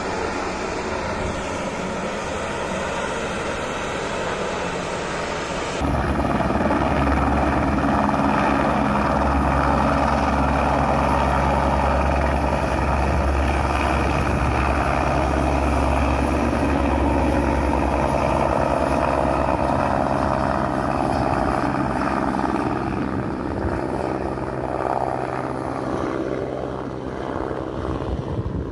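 Twin-engine turboprop plane taxiing, its propellers droning steadily. About six seconds in the sound switches suddenly to a helicopter's rotor and turbine running steadily as it flies off, growing a little fainter near the end.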